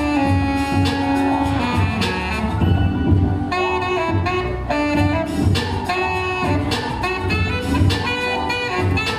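Saxophone playing a jazz melody of held and moving notes, with low bass notes pulsing about twice a second underneath.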